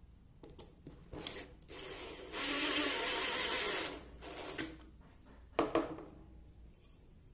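Makita cordless impact driver driving a screw into a pine frame. It starts in a short burst, runs steadily for about a second and a half with a thin high whine, then gives a brief final burst. Two sharp knocks follow about a second later.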